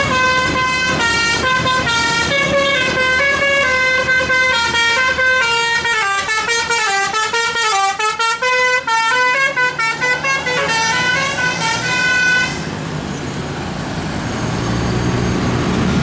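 Tour bus's telolet multi-tone musical air horn playing a quick melody of stepping notes for about twelve seconds, then cutting off. Engine and traffic noise follow, growing louder near the end.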